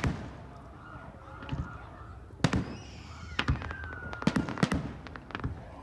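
Aerial fireworks bursting: a string of sharp bangs, one at the start, then a quicker volley of about eight between about two and a half and five and a half seconds in.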